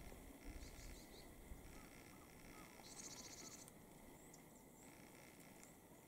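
Faint high calls of small birds: a few thin notes about a second in, then a short, buzzy, rasping call about three seconds in, the kind of call a Japanese pygmy woodpecker gives.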